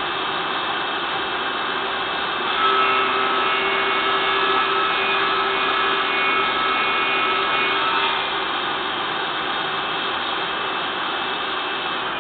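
Homemade table saw running, its blade cutting through wood for about five seconds in the middle, with the motor spinning free before and after the cut.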